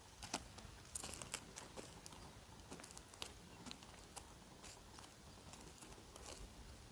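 Faint footsteps on dry, stony ground: a few irregular crunches and clicks over a quiet background.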